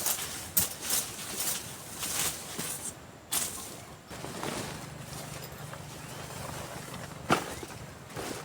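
Crunching and rustling of dry leaves and twigs in brush, a few short bursts at a time, then a low steady drone for about three seconds and a single sharp snap near the end.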